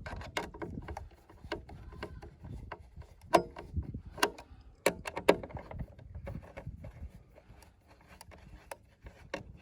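Scattered light clicks and taps at an irregular pace, with a few sharper knocks in the middle, from hands handling a screwdriver and the screws and plate on a pedalboard.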